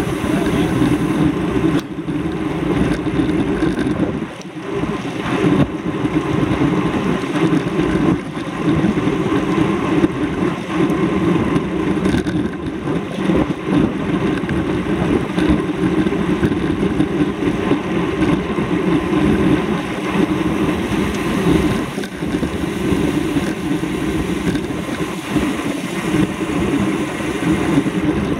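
A motor vehicle running: steady engine and road noise with no breaks.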